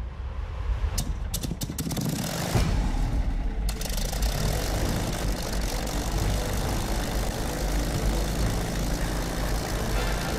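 Spitfire's Rolls-Royce Merlin V12 aero engine running steadily, taking over a couple of seconds in after a few sharp clicks.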